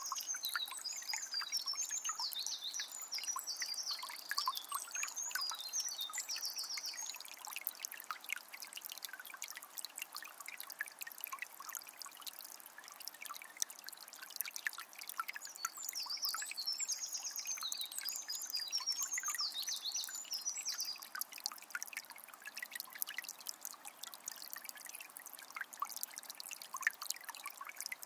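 Forest river flowing with a steady trickling and babbling of water. A small bird sings in two spells of quick chirping phrases, one at the start and one a little past the middle.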